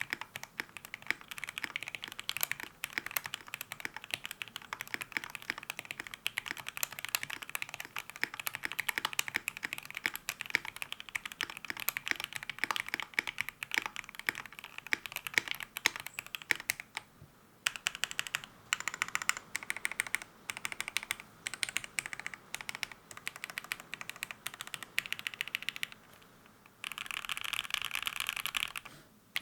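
Mechanical keyboard typing: a KBD67lite R3 with AKKO Jelly Black switches, tape mod, no mute silicone and Shoko PBT keycaps. Fast continuous typing for the first half, then sparser groups of keystrokes after a short pause, and a dense run of rapid presses near the end.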